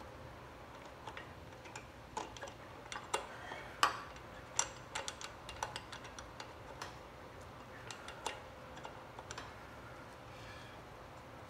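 Irregular light clicks and ticks from a wrench and hands working the drum brake's actuating arm and cable adjuster on a mini bike's front wheel, thickest in the middle stretch.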